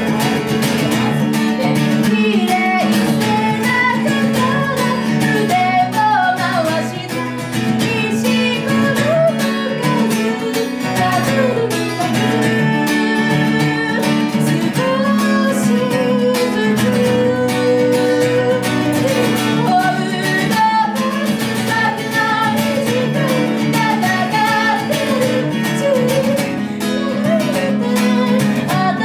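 A woman singing to acoustic guitar accompaniment, live, the guitar played steadily under her voice.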